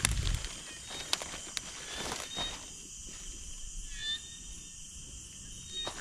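Outdoor ambience of insects buzzing steadily and high-pitched, with a few sharp clicks and knocks in the first two seconds and short chirps around four seconds in and near the end.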